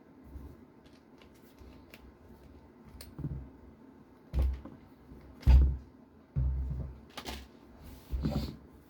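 Handling noises from an RC car and its parts being worked on: scattered light clicks and a few dull knocks and thumps, the loudest about halfway through.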